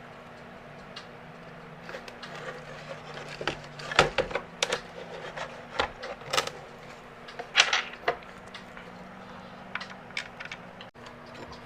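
Hard plastic and metal PC parts, a CPU cooler mounting bracket, being handled and fitted against a motherboard: scattered sharp clicks and knocks, busiest in the middle, over a faint steady hum.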